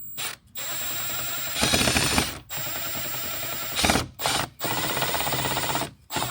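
A cordless power driver running in several bursts of one to two seconds with short pauses between, with a rattling, ratchet-like sound as it drives a fastener.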